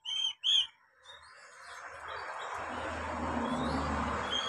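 Oriental magpie-robin giving two or three short, sharp whistled notes in the first second. A steady rushing noise then builds up and carries on, with faint high notes within it.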